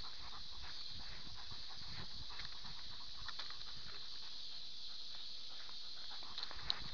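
Rhodesian ridgeback's paws hitting a rocky, grassy woodland trail as she moves, a run of short irregular footfalls and knocks heard close up through a camera strapped to her chest, over a steady hiss. A sharper click comes near the end.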